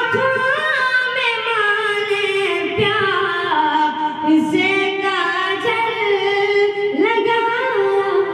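A boy singing an Urdu ghazal with no instruments, holding long notes and bending them through ornamented turns.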